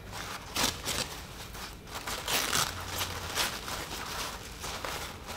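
Thin white paper wrapping rustling and crinkling as it is peeled off a potted plant, in a string of short, irregular rustles.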